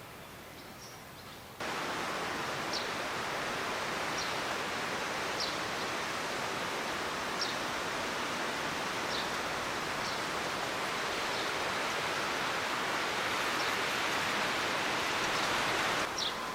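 Steady rain falling, a dense even hiss that starts abruptly just after the beginning and stops shortly before the end, with a few short, high, falling chirps heard through it.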